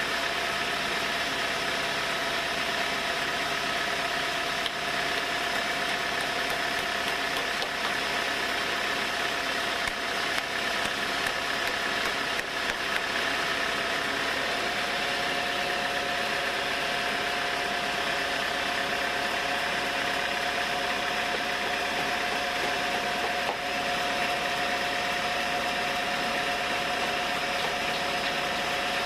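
Engine-driven sawmill running steadily: a constant mechanical din with a steady whine, and a second, slightly lower whine joins about halfway through.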